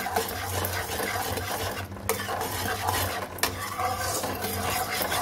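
Metal spatula stirring and scraping around a kadhai of boiling sugar syrup, over the fine crackle of the bubbling syrup, with two brief pauses between strokes. The sugar has melted and the syrup is being boiled on for about a minute.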